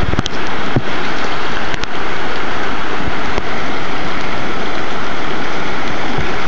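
Rushing whitewater of a river rapid, a loud steady noise, with a few short knocks in the first seconds.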